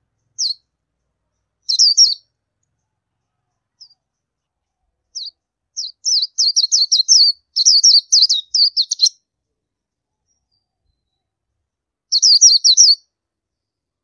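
Oriental white-eye calling: thin, high chirps in short quick runs, with a few single notes between, a longer run of rapid notes about halfway through, and one more short burst near the end.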